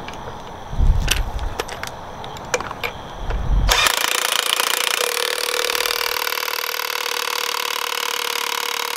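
Cordless impact wrench starting nearly four seconds in and running steadily with a fast hammering rattle as it runs down the top nut of a front strut assembly. A few clicks and knocks of handling come before it.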